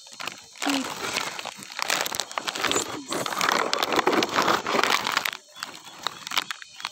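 Leaves and branches rustling and crackling close against the phone's microphone as it is pushed through garden foliage, a dense crinkling noise that dies away about five and a half seconds in.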